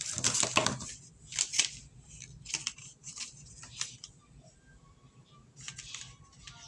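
Packaging being handled and opened, a run of crackling rustles that dies away after about four seconds, with a short rustle again near the end.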